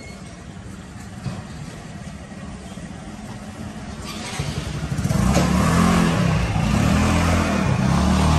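A motor vehicle's engine, faint at first, grows louder from about four seconds in and runs loud with a wavering pitch from about five seconds in.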